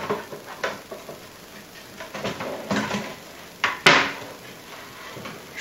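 The plastic case of a Heathkit IM-2260 digital multimeter being handled on a wooden bench as the chassis is slid out: a string of scrapes and clicks, with one sharp knock about four seconds in, the loudest sound.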